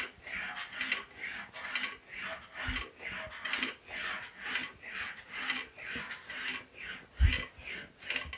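Sheet-metal fender panel being rolled back and forth through an English wheel, a rhythmic swish of metal passing between the wheels about twice a second, as the panel is stretched around the headlight area. Two low thumps, the louder one about seven seconds in.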